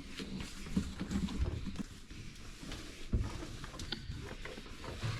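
A cloth rag wiping and rubbing the inside of a dishwasher, with light knocks against the tub and door and one firmer thump about three seconds in.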